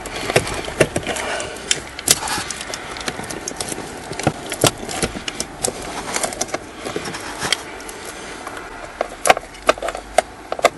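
Irregular metal clicks and clinks of a ratchet on a swivel extension being worked onto a screw at the back of a car's blower motor, up under the dashboard, with a denser run of clicks near the end.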